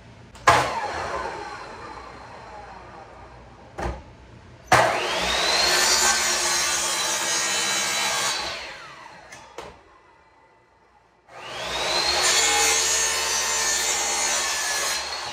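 Compact electric miter saw cutting a wooden board at a 45-degree angle. One cut is winding down at the start. Two more full cuts follow, each opening with a rising motor whine and running about three to four seconds through the wood before the blade spins down.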